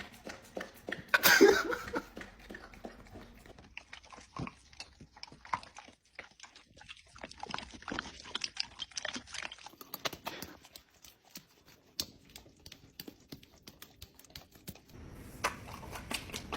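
A pet chewing and crunching food, with many small, irregular crunches and clicks. A louder, brief noise comes about a second in.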